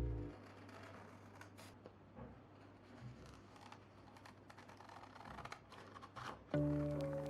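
Soft rustling and scattered light clicks of small craft materials being handled at a desk, of the kind scissors and paper packaging make. Lo-fi background music cuts off just after the start and comes back in near the end.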